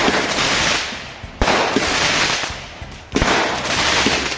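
Fireworks going off: two sharp bangs about a second and a half apart, each followed by a fading crackle.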